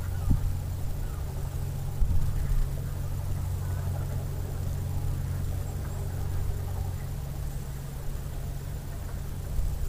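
Steady low engine drone with a couple of short low thumps near the start; the lower part of the drone fades about seven seconds in.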